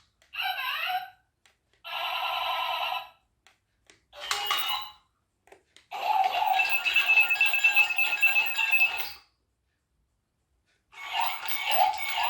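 Chad Valley remote-control toy robot's sound chip playing electronic robot noises: a series of short bleeping, warbling bursts with silent pauses between, the longest lasting about three seconds.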